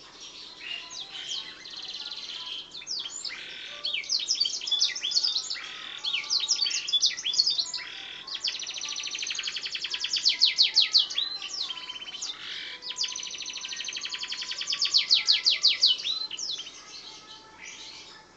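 Domestic canary singing a long, varied song of chirps and whistled notes. Twice it breaks into a fast rolling trill several seconds long, which is the loudest part. The song thins to softer notes near the end.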